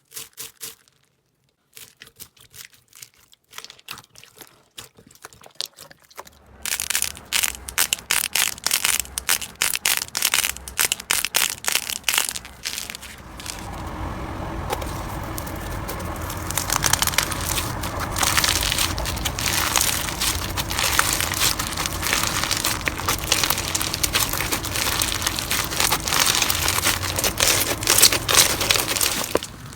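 Crunchy slime being squeezed and worked by hand, crackling and popping. Scattered pops at first grow into dense, continuous crackling about halfway through, which cuts off suddenly just before the end.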